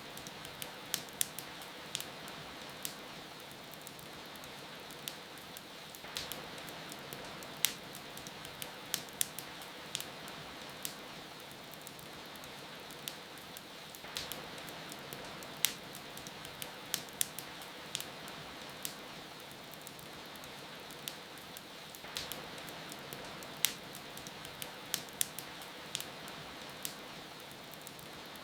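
Wood fire crackling, with irregular sharp pops and snaps, over a steady hiss of falling rain.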